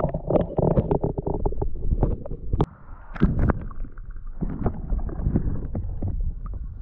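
Action camera's microphone at and under a river's surface: splashing and handling knocks, then after a sudden drop about two and a half seconds in, the muffled underwater rumble and gurgle of the current with scattered knocks.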